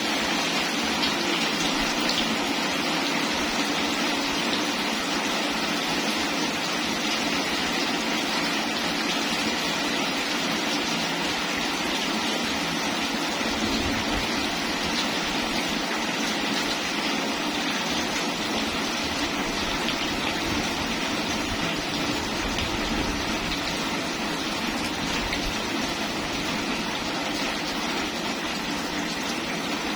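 Steady rain falling, a continuous even hiss of drops. A low rumble comes and goes through the middle.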